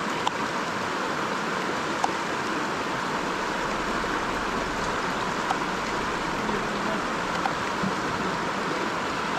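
River water rushing steadily over rocks, with a few light ticks of a knife cutting carrots on a wooden board.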